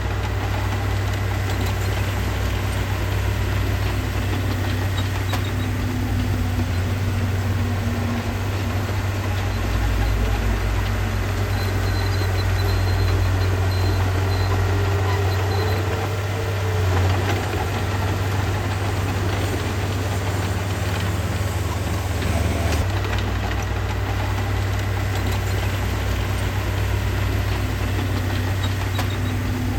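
Diesel engine of heavy earthmoving equipment running steadily at a low, even pitch.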